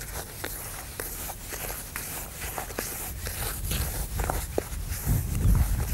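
Hands stirring dry groundbait in a plastic bowl before any water is added: a gritty rustling with small scrapes and clicks. About five seconds in, a low rumble comes in under it.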